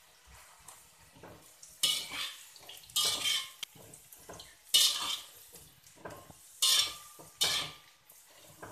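Metal slotted spatula scraping and clanking against a steel wok as fried tempeh cubes are stir-fried, in five separate strokes about a second or two apart. Two of the strokes leave a short metallic ring.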